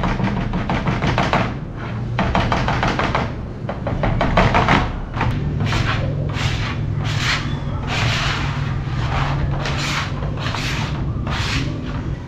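A flat scrap applicator scraping over a plywood board as it spreads contact cement, in short rubbing strokes about two a second that become distinct about five seconds in. A steady low hum runs underneath.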